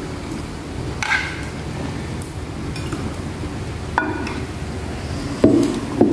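Plates and cutlery clinking and knocking a few times over a steady low background rumble: short ringing clinks about a second in and around four seconds in, then two louder, lower knocks near the end.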